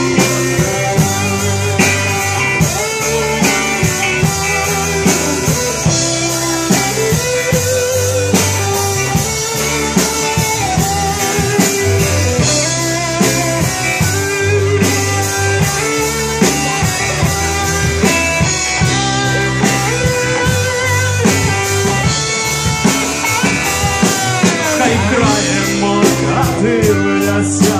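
Rock band playing an instrumental break: a melodic lead line with bent, wavering notes over bass and a steady drum-kit beat.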